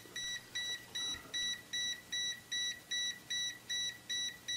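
Kaiweets HT118A digital multimeter's buzzer beeping repeatedly in its Live-detection mode, short high-pitched beeps at about two and a half a second. The beeping is the meter's warning that the probe has found a hot conductor: the live slot of a mains outlet.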